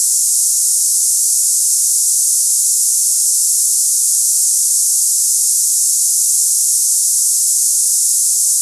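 Steady high-pitched hiss, a cicada-like tinnitus sample. It is an even band of treble noise with no low end and no pulsing or change.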